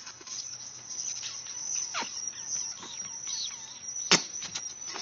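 Insects chirping in a steady high-pitched drone, with a few short falling chirps and one sharp click about four seconds in.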